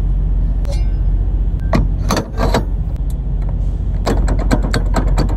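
Clanks and rattling clicks of a steel cargo-door lock being fitted and clamped onto a semi-trailer's rear door locking bars, in two bursts. A steady engine hum runs underneath.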